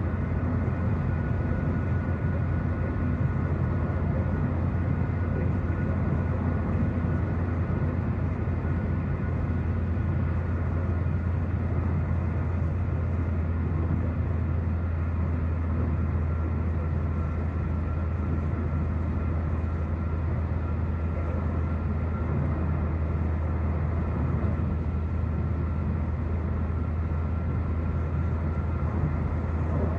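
Steady car cabin noise at freeway speed: road and tyre rumble with a constant low hum, unchanging throughout.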